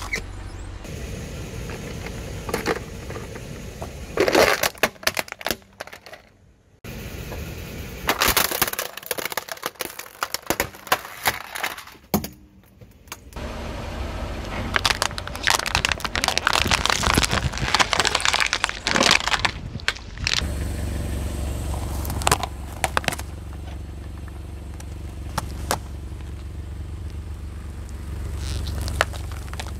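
A car tyre rolls over brittle objects and crushes them in several bursts of cracking and crunching, over a low engine rumble. A few single sharp cracks come near the end.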